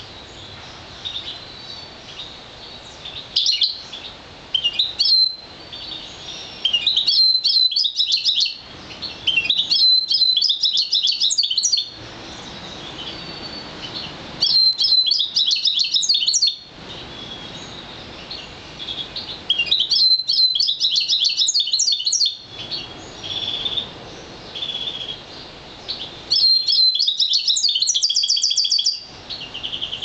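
European goldfinch × Green Fife canary mule singing: high, fast twittering song phrases of about two seconds each, repeated every few seconds with short single calls between them. The last phrase ends in a quick trill.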